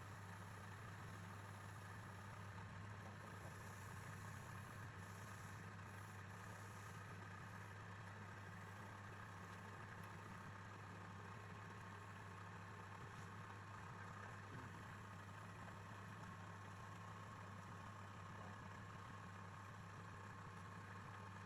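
Wood lathe's electric motor running with a steady, faint, even hum.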